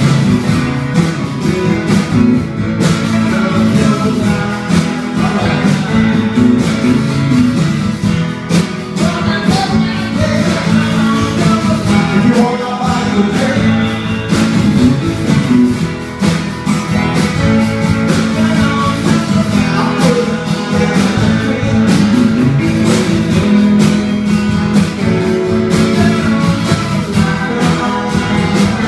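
Two electric guitars, a Les Paul-style and a Stratocaster-style, played live through amplifiers in an instrumental rock passage.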